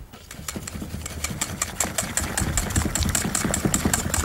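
Wire whisk beating a thick chickpea-flour batter in a bowl, rapid even strokes of about nine a second with the wires clicking against the bowl, building up over the first second.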